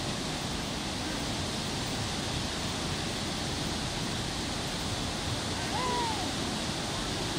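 Steady rush of a river in spate pouring over a low rock waterfall and rapids.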